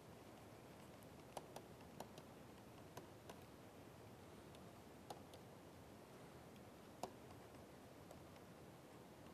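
Faint, irregular clicks of a pen stylus tapping a tablet screen while handwriting, about eight over several seconds, over low room hiss.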